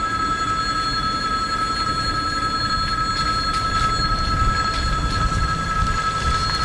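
Railway level-crossing warning bell ringing continuously and evenly, sounding while the barriers are down as a train approaches. A low rumble runs underneath.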